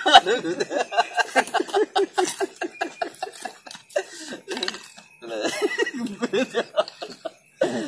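Men's voices in quick, choppy non-speech pulses, laughter- and belch-like, for about three and a half seconds, dropping off briefly and starting again about five seconds in.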